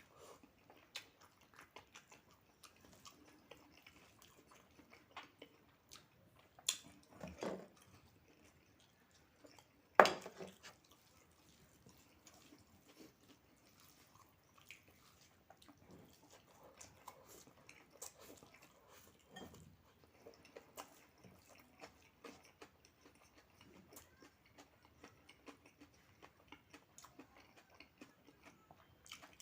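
Eating sounds: quiet chewing and mouth sounds with small clicks of a spoon or fork on a plate, and one sharp clink about ten seconds in.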